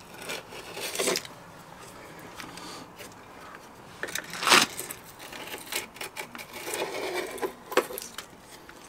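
A Stanley knife blade scraping tough old mastic off the cut edge of a granite sink, in short irregular strokes with scratches and clicks of steel on stone; the loudest scrape comes about four and a half seconds in.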